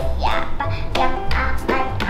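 Background music with a steady beat and a bright melody.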